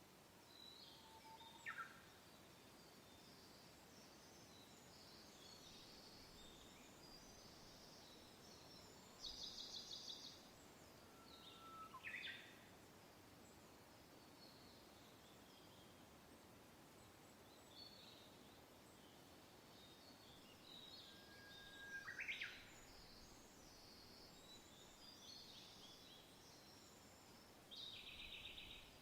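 Faint birdsong over a soft, steady hiss of wind: scattered high chirps, a short whistled note with a quick sharp upsweep three times, and a brief buzzy trill twice.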